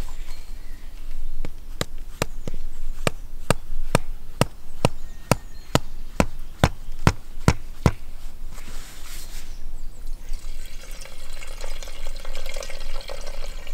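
A wooden stake is knocked into the ground with about fifteen sharp, even blows, roughly two a second, which stop about two thirds of the way through. Near the end, red wine is poured from a bottle into a copper pot as a steady splashing stream.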